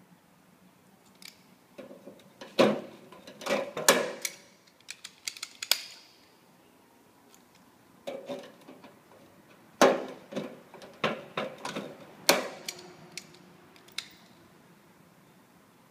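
Hand pop-rivet gun fastening a metal downpipe pop to a steel quad gutter: irregular sharp metallic clicks and snaps in clusters, the loudest about two and a half and ten seconds in, with small metal handling clatter between.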